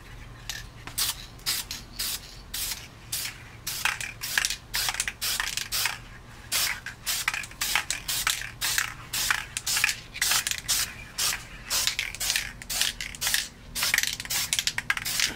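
Aerosol spray can of paint hissing in many short, quick bursts, about two or three a second, laying down a heavier third coat.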